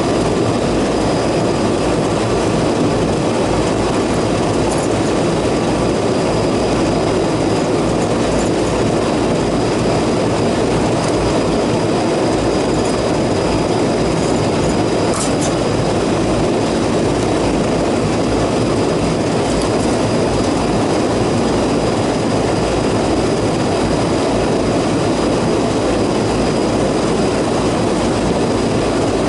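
Steady machinery noise from rooftop air-conditioning units running, an even whooshing drone with a faint high steady tone above it.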